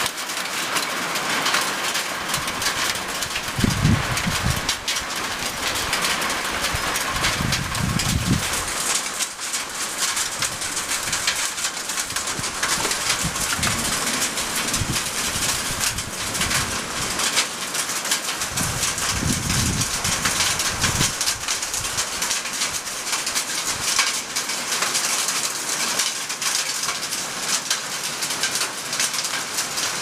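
Heavy rain pouring steadily with a continuous hiss. Every few seconds a low rumbling burst a second or two long rises over it, four times in all.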